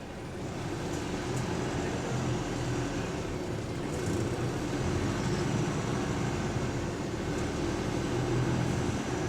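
Engine and drivetrain of bus WS104 heard from inside the passenger saloon as it drives along: a steady running hum that grows a little louder over the first second or two.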